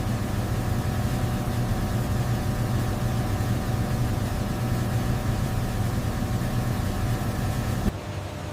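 Steady machine hum: a low drone with a few held tones over a hiss. It switches abruptly near the end to a quieter, different steady hum.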